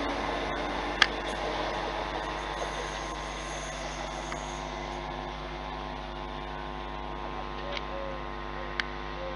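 Steady electrical buzz from a zoomed-in camcorder's zoom, many constant tones at once, over the sound of a passenger train fading as it moves away. A sharp click about a second in.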